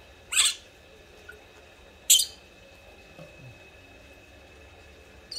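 A baby monkey gives two short, shrill squeals, about a second and a half apart, while it is being wiped and fed from a bottle.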